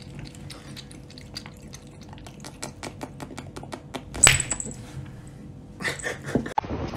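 A cat lapping water from a cut-glass mug: quick wet tongue clicks, about four to five a second, with faint clinks against the glass. About four seconds in comes a louder knock with a brief high ring, and a few more knocks follow near the end.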